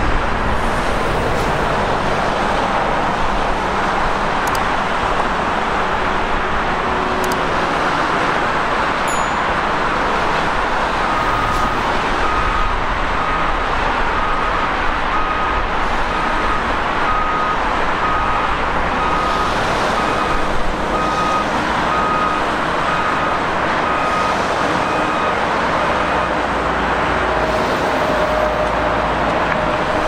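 Steady highway traffic noise from passing cars and trucks. From about a third of the way in until near the end, a construction machine's reversing alarm beeps at an even pace over it.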